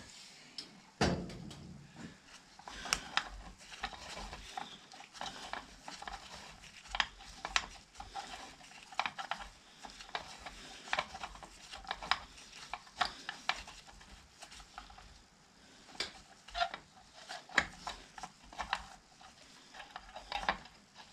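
Irregular metallic clicks and clinks of hand tools and parts being fitted on a David Brown 996 tractor's throttle linkage, with a louder knock about a second in.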